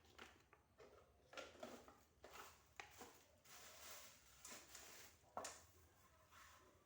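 Faint handling noises: small knocks and clicks mixed with rubbing and scraping, with one sharper knock about five seconds in.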